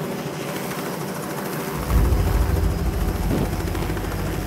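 Robinson helicopter running on the ground with its main rotor turning, a steady engine and rotor sound. About two seconds in, a loud deep rumble swells in and stays.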